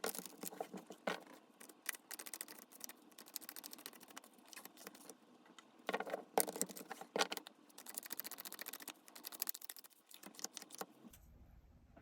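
Tarot cards being shuffled and handled: quick runs of papery flicks and rustles in clusters, louder about six seconds in, thinning out near the end.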